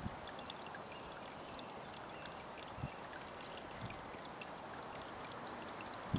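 Steady rushing outdoor noise with faint high ticks, broken by two soft low thumps a little under three and about four seconds in.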